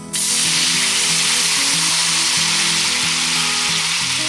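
Balsamic vinegar hitting a hot cast-iron skillet coated in leftover steak fat: a loud sizzle starts suddenly at the very beginning and holds steady as the vinegar boils hard to cook off its sharpness.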